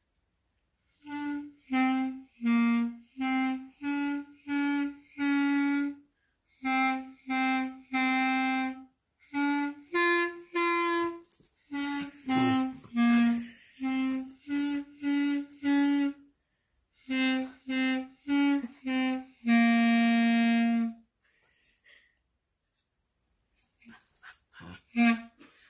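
Clarinet playing slow practice: a string of short, separate notes in four phrases with short gaps, ending on one longer held note. A few faint short sounds follow near the end.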